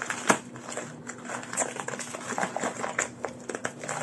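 Wrapping paper and tissue paper rustling and crackling as a small gift is torn open by hand, with irregular crinkles and one sharper crack about a third of a second in.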